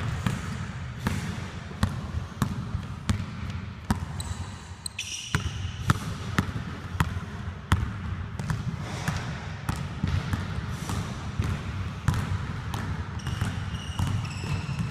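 Basketball dribbled on a hardwood gym floor: a steady run of bounces about two a second, with a brief pause about four and a half seconds in. A few short high squeaks come in among the bounces.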